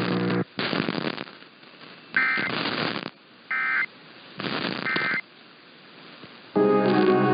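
Emergency Alert System end-of-message data bursts: three short two-tone digital screeches about a second and a half apart, marking the end of the warning, mixed with bursts of radio static. Loud music starts near the end.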